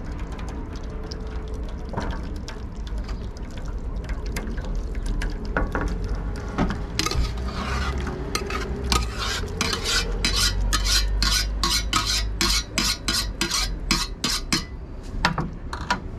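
Curry sauce poured from a stainless steel bowl into a steel tray, then, from about seven seconds in, a metal utensil scraping and knocking against the steel bowl to empty it, in quick repeated strokes about two or three a second.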